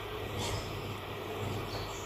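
Outdoor garden ambience: a steady low rumble with a faint hiss, with no scissor snips.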